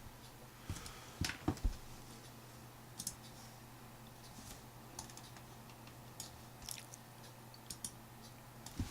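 Faint, scattered clicks of computer keys and clicks being pressed, a short cluster in the first two seconds and then single clicks about once a second, over a low steady hum.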